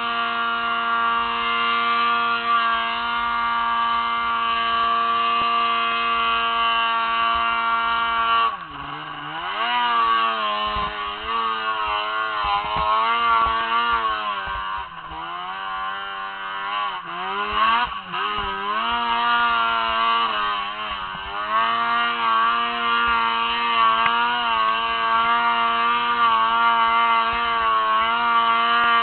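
Snowmobile engine running at high revs under load on a hillclimb, heard from on board. The pitch holds high and steady, drops sharply and recovers about a third of the way in, rises and falls repeatedly for several seconds, then holds high and steady again near the end.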